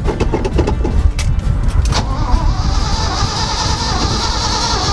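Old dump truck engine being started from cold: it cranks roughly for about two seconds, then catches and settles into steady running.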